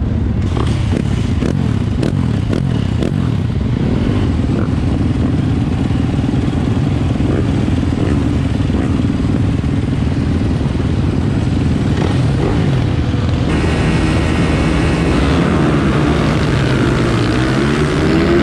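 Yamaha YZ450F supermoto's single-cylinder four-stroke engine running at low revs, with other motorcycles around. About three-quarters of the way in it is opened up hard, its pitch rising and dropping as it accelerates through the gears.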